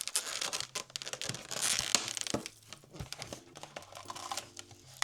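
Plastic blind-box packaging crinkling and tearing as it is handled and pulled open by hand, in irregular bursts that are loudest about two seconds in.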